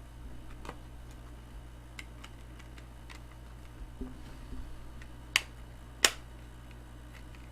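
A plastic Blu-ray case being handled: scattered light clicks and rustles, then two sharp plastic clicks a little under a second apart, over a steady low hum.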